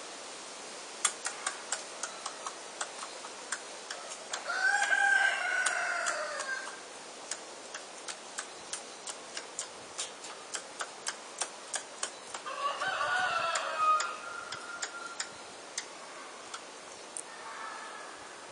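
A rooster crowing twice, each crow about two seconds long, the second coming about eight seconds after the first. Under them runs a series of sharp, fairly regular clicks, about two or three a second.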